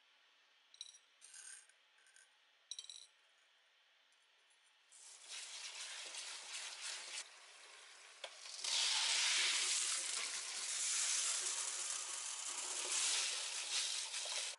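Dried azuki beans clicking a few times on a ceramic plate as they are sorted by hand. Then tap water runs into a steel bowl in the sink, louder from about nine seconds in as the beans are rinsed in it.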